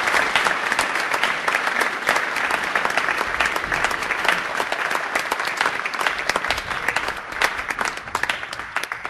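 Audience applauding, a dense patter of many claps that thins out and fades towards the end.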